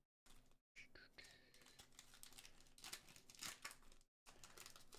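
Faint crinkling and rustling of a foil trading-card booster pack and cards being handled, in many small clicks.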